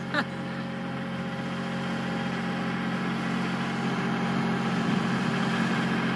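Cherry picker (articulated boom lift) power unit running steadily as it works the raised basket, a low mechanical hum that grows a little louder.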